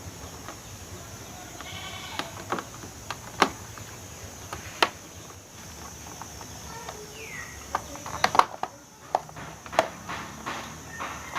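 Sharp clicks and knocks of plastic air-conditioner parts being handled and fitted back together, scattered through and thickest about eight seconds in. A brief animal call with a clear pitch sounds about two seconds in.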